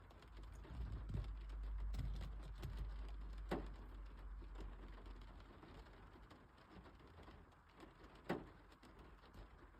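Raindrops tapping on a glass pane: a faint, scattered patter of small ticks, with two louder single drops, one about a third of the way in and one near the end. A low rumble underneath fades out about halfway through.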